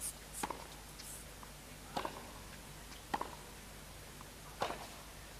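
A tennis ball bounced on a hard court by a player before serving: four sharp knocks, each more than a second apart, over a faint broadcast hum.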